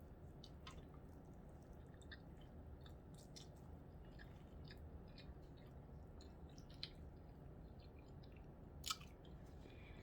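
Faint chewing of a corned beef sandwich: soft, wet mouth clicks scattered throughout, with one sharper click near the end.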